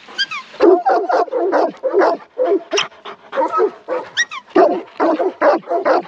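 Working farm dog barking over and over, about two to three barks a second, with a couple of quick high falling yelps among them, while mustering sheep.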